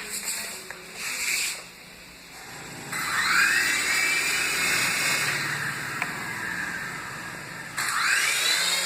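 Toy remote-control helicopter's small electric rotor motor spinning up with a rising whine about three seconds in, then running at a steady high whine. The whine eases off and spins up again near the end, as the throttle is pushed for take-off. Before it, two brief rustles.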